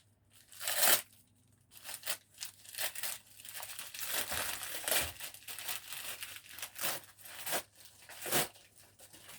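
Wrapping being torn open and crinkled by hand: a sharp tear about a second in, then a run of short rustling, crackling tears.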